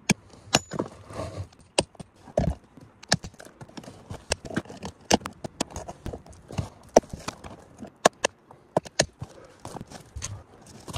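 Hammer striking a steel chisel wedged in a granite crack, with clinks and scrapes of tools and broken rock: a run of irregular sharp knocks and clicks, several a second.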